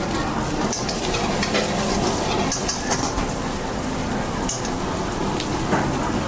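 Egg and ham fried rice sizzling in a wok as it is stir-fried, with the metal spatula clicking and scraping against the pan.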